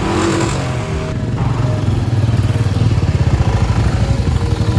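Motorcycle engine running as the bike pulls away, a fast steady exhaust pulse that grows louder after about a second.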